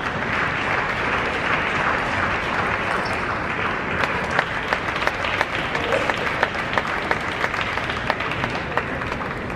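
Arena crowd applauding the end of a table tennis point. The dense clapping swells at the start, then thins from about halfway on, so that separate sharp claps stand out, and fades near the end.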